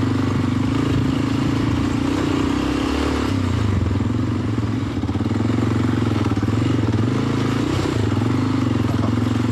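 Honda Dominator NX650's single-cylinder four-stroke engine running under load as the bike is ridden over rocky ground, its revs rising and falling with the throttle.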